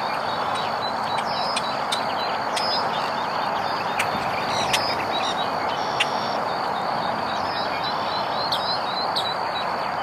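Marsh ambience: frequent short, high bird chirps and calls over a steady background hiss and a faint steady high-pitched tone.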